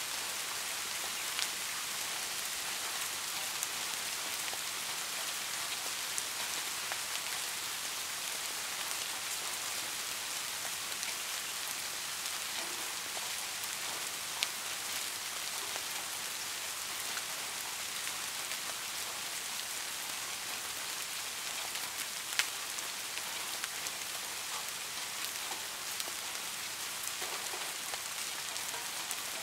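Steady rain: an even hiss with a few scattered sharp ticks.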